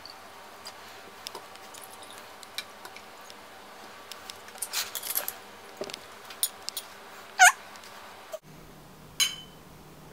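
Wine glasses and a wine bottle being handled on a table: light clicks and clinks of glass, with a short, sharp squeak about seven seconds in.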